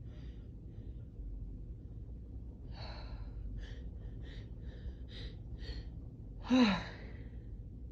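Allergy sneezing: a run of about six short, quick breathy gasps building up, then one loud sneeze with a falling voice about six and a half seconds in.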